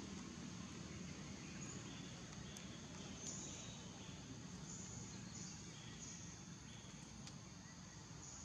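Faint insects buzzing in on-and-off stretches of about a second, over a steady background hiss.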